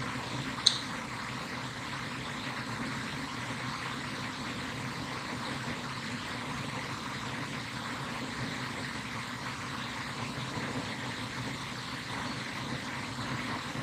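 Steady rushing background noise with no clear source, and one short high chirp about a second in.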